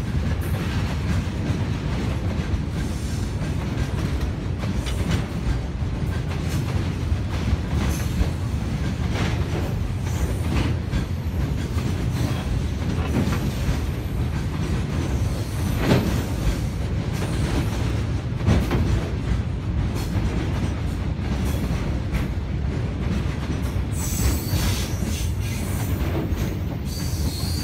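Loaded Roll-on Roll-off freight train of lorries on flat wagons rolling past: a steady rumble of steel wheels on the rails, with the wheels clacking over the rail joints.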